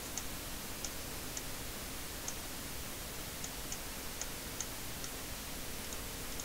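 Faint, irregular clicking from a computer mouse, about ten clicks spread unevenly over a steady background hiss.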